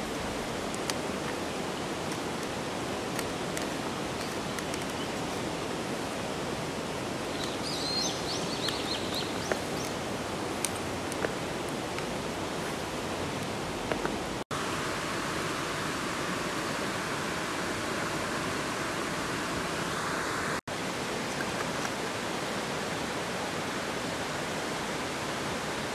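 Steady rushing of water, with a few sharp drip-like ticks scattered through it and a brief high chirp about eight seconds in. The sound breaks off for an instant twice.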